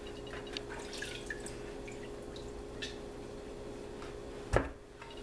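Small wet clicks and ticks from raw turkey wings being handled in a glass baking dish, with one sharp thud about four and a half seconds in as a wing is set down in the dish, over a steady hum.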